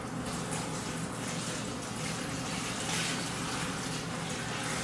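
Water poured steadily from a pitcher into a 5-gallon Toddy cold-brew bucket, splashing over the filter bag of coffee grounds.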